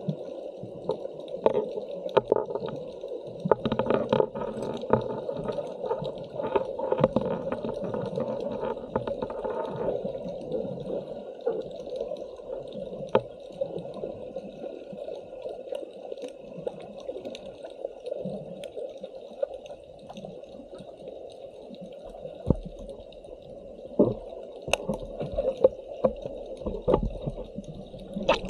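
Underwater ambience picked up by a diver's camera: a steady rush of water with scattered sharp clicks.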